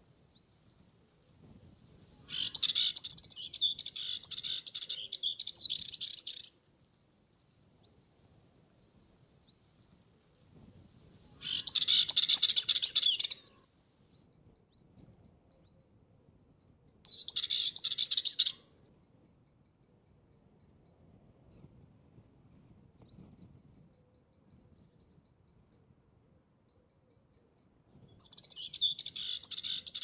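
Dartford warbler singing: four bouts of rapid, scratchy warbling, the first about four seconds long and the others shorter. A few faint single high notes fall between the bouts.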